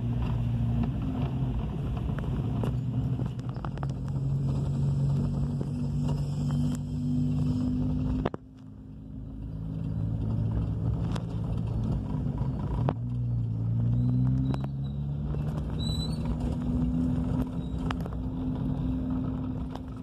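Car engine running and tyre noise on block paving, heard from inside the cabin while driving slowly through town. The engine's pitch shifts as the car slows and picks up speed, rising about thirteen seconds in. The sound dips sharply for a moment about eight seconds in.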